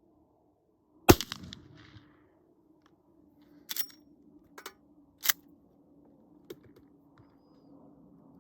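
A single shot from a Henry Big Boy .44 Magnum lever-action rifle about a second in, its report trailing off over about a second. A few sharp clicks follow over the next several seconds.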